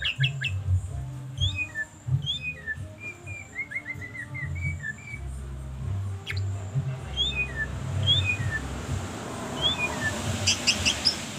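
White-rumped shama (murai batu) singing: clear whistled notes that sweep up and down, with a quick run of descending notes about three seconds in and a few sharp clicking chips near the end. A low hum comes and goes underneath.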